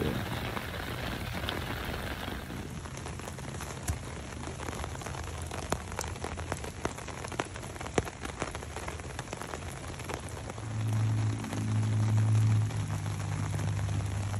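Rain pattering on a hammock rain fly, with many single drops ticking sharply on the tarp. A low steady hum comes in about ten and a half seconds in and is the loudest thing near the end.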